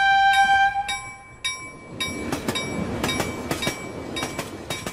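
Railroad sound effect: a grade-crossing bell ringing about twice a second, with a train horn note that ends about a second in. From about two seconds in, a passing train's rumble joins the bell.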